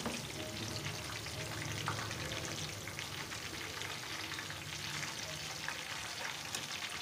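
Samosas deep-frying in oil in a kadhai: a steady sizzle dotted with many fine crackles.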